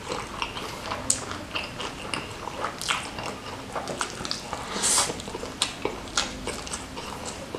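Close-up eating of spicy smashed fried chicken with rice, eaten by hand: chewing and wet mouth smacks, heard as many short, irregular clicks. One louder, longer smack comes about five seconds in.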